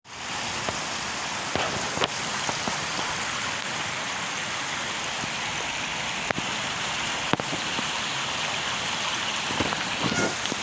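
Steady rush of a waterfall, with a few short sharp ticks scattered through it.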